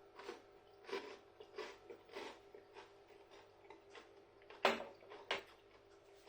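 Someone biting into and chewing a crispy, breadcrumb-coated sesame chicken toast: a run of short crunches, the loudest a little over two-thirds of the way through.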